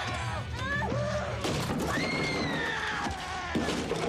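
High screams during a violent struggle: several short cries in the first second, then one long scream from about two seconds in that slowly falls in pitch, with knocks and crashes in the middle, over a low steady drone.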